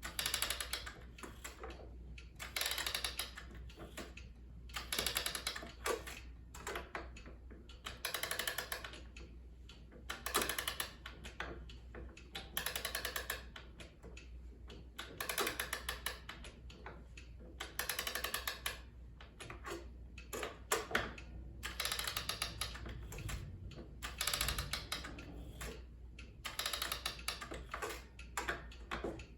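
A key-wound mechanical clock's mainspring being wound: short bursts of ratchet clicks, one burst for each turn of the winding key, repeating about every two seconds.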